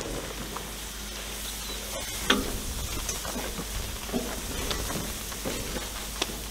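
Fire sizzling and crackling under a whole beef carcass as fat drips into it, with a few sharp knocks scattered through, the loudest a little over two seconds in.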